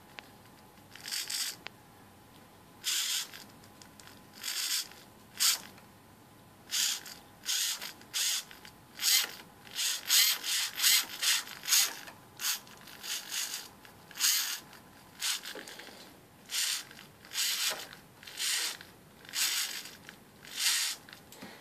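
Hobby servo motor whirring in short bursts as it swings to new positions, its gear train buzzing with each move; each burst follows a turn of the potentiometer knob that sets its angle. About twenty bursts of varying length, coming faster and closer together around the middle.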